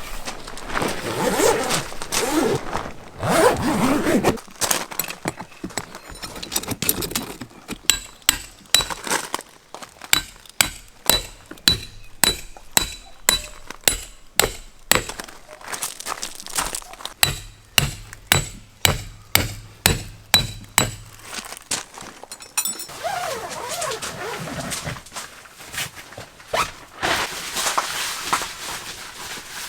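A steady run of sharp knocks with a metallic ring, about two a second, lasting some fifteen seconds. Scraping and rubbing come before and after it.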